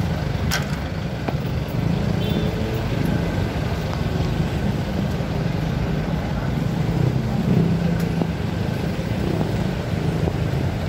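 Steady street traffic noise, with motor vehicle engines running and passing. There is a brief sharp click about half a second in.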